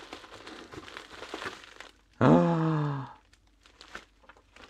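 Plastic parts bags and bubble wrap crinkling as hands sort through the bagged kit. About two seconds in, a man gives a loud, drawn-out exclamation that falls in pitch and lasts just under a second.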